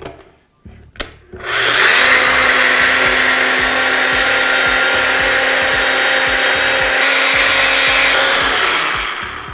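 Nutribullet personal blender puréeing hot cooked squash soup. A click about a second in as the cup is pressed onto the base, then the motor starts and runs loud and steady for about seven seconds before spinning down near the end.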